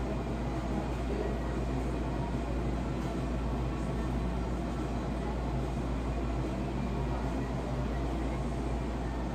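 Steady low hum and hiss of room background noise, even throughout, with no distinct sounds standing out.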